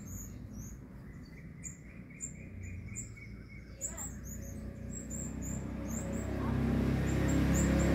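Sunbirds giving short, high chirps several times a second: the parents calling their fledgling back toward the nest at roosting time. A low rumble builds underneath near the end.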